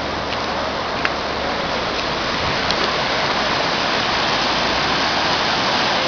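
Floodwater of a swollen river rushing past, a loud, steady roar of water that grows a little louder toward the end.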